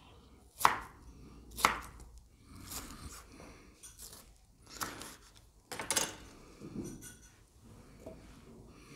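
Kitchen knife chopping a tomato on a wooden cutting board: several separate sharp knocks of the blade hitting the board, irregularly spaced, the loudest two about a second apart near the start.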